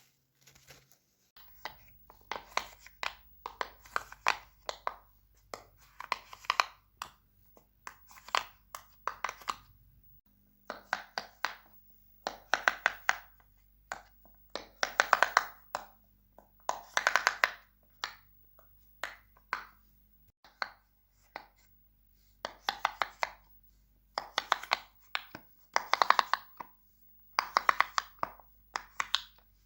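Fidget toys being handled in repeated short bursts of rapid crackling clicks, about one burst every second or two.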